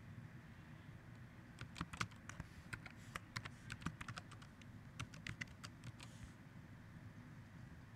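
Computer keyboard typing: a quick, irregular run of faint key clicks starting about a second and a half in and stopping near the end, over a low steady hiss.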